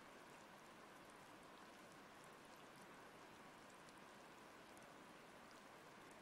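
Near silence: a faint, steady hiss with scattered faint ticks.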